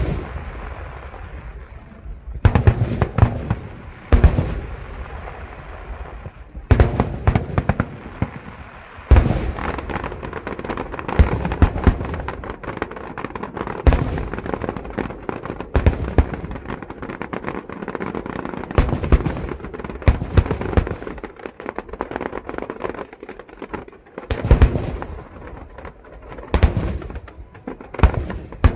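Aerial fireworks display: shells bursting in rapid volleys of sharp booms, over steady crackling, with the biggest bursts coming in clusters every few seconds.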